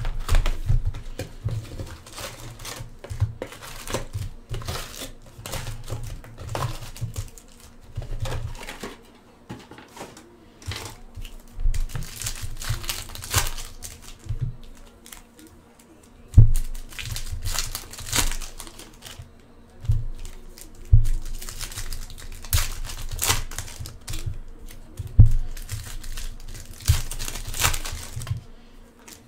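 Foil trading-card pack wrappers being torn open and crinkled by hand, an irregular crackling that goes on throughout, with a few sharp knocks on the table now and then.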